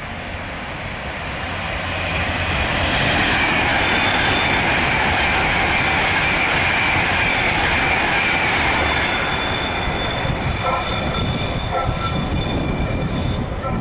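Class 230 train (converted London Underground D Stock) running in round a curve into a platform, with metal-on-metal wheel squeal. The squeal sets in about two seconds in as the train gets louder, and near the end higher, stuttering squealing tones join in.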